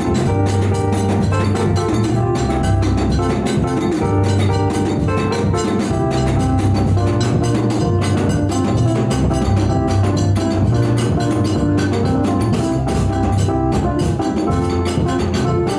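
Upbeat dance music with a drum kit and fast, busy percussion under repeating melodic lines, played loud and steady.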